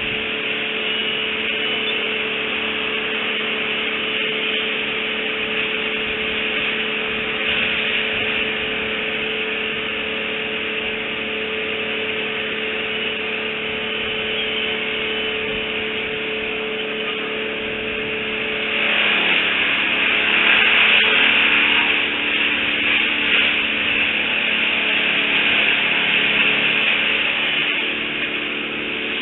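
A steady mechanical drone with hiss, which changes pitch and grows louder about two-thirds of the way through.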